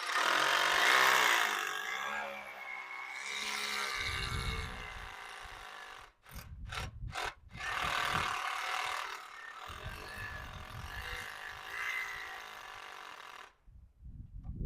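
A power tool's motor running, its pitch shifting as the speed changes, with three short sharp bursts about halfway; it cuts off abruptly near the end.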